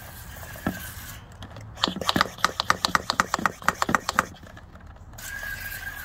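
Pink hand-pump garden sprayer being pumped to build pressure: a fast, even run of squeaky strokes, several a second, for about two seconds in the middle. A faint steady hiss with a thin whistle comes before and after.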